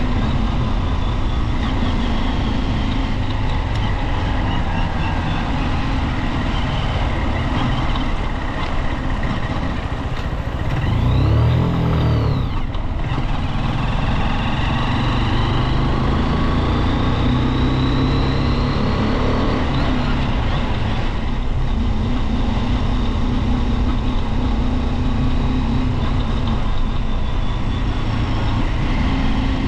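Junak motorcycle running at a steady road speed, its engine mixed with wind rush, with a brief louder swell about twelve seconds in.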